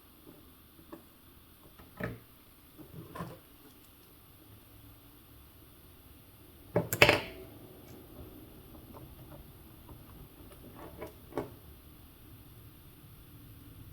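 Scattered small clicks and taps of tiny metal track clips, dowels and tools being handled on a workbench, with one sharper click about seven seconds in.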